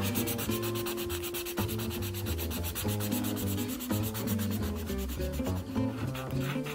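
Felt-tip marker scribbling on paper in rapid back-and-forth strokes: a continuous scratchy rubbing as an area is coloured in.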